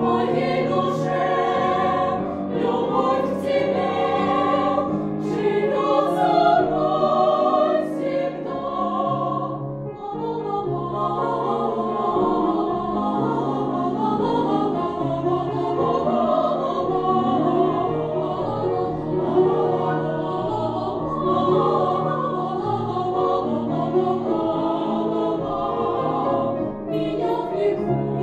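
Girls' vocal ensemble of about nine voices singing a slow song together, with piano accompaniment underneath.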